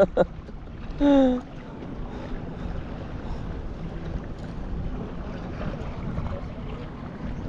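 Steady wind buffeting the microphone over water sloshing around a small boat at sea, with a short voiced exclamation about a second in.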